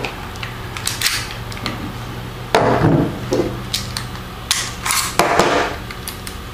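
Sharp metallic clicks and clacks of all-steel CZ 82 and CZ 83 pistols being unloaded: magazines released and slides pulled back and locked open. Two longer, louder clacks come about two and a half seconds in and again near the end.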